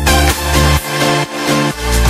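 Electronic dance background music with a steady kick-drum beat. The bass and kick drop out for about a second in the middle, then come back.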